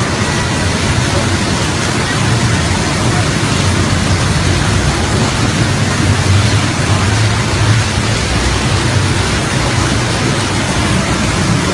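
Fast-flowing floodwater rushing down a street, a loud steady rush of water.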